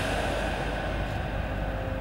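Steady low rumble of a metro train, with a hiss that fades away over the first second.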